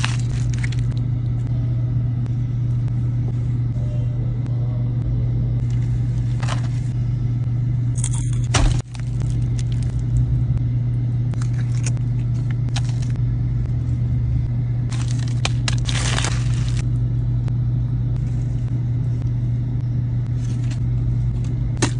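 Steady low rumble of a car's running engine heard inside the cabin. Over it come occasional brief crinkles of foil and paper food wrapping, longer bursts of them around three-quarters of the way through.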